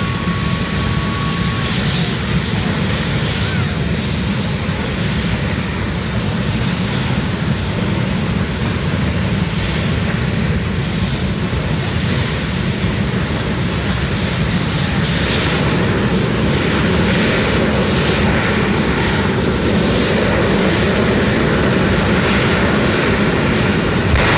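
Drag racing vehicles running at the starting line: a loud, steady roar that grows slightly louder over the second half.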